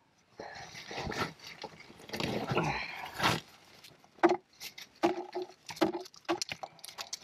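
A caver crawling and squeezing through a tight rock passage: the suit and gear scrape and rustle against the rock, followed by a series of short knocks and scrapes as hands and body shift over the stone.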